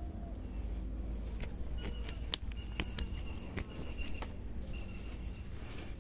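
Cast net being handled, its lead sinkers giving a few sharp clicks and clinks, over a steady low rumble. A faint, thin high tone comes and goes.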